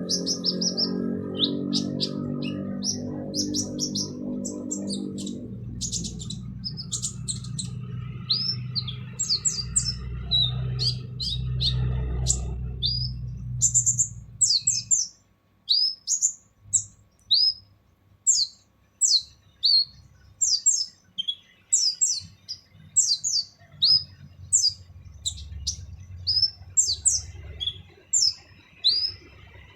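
Kolibri ninja sunbird singing a harsh, rough-voiced song of rapid, sharp, high chirps and short trills. A low hum sits under the song for the first half and stops about halfway through. After that the chirps come in separate bursts of about one or two a second.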